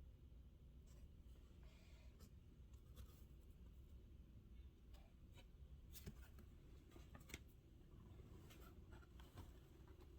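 Near silence with faint paper-handling sounds: old photographs and cards lightly rustling and tapping as they are picked up and turned over, a few small clicks scattered through, over a low room hum.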